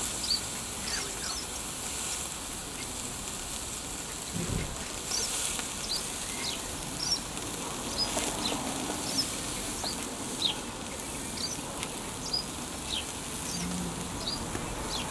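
Steak sizzling on the grate of a small wood-fired firebox stove, a steady hiss, with small birds chirping on and off.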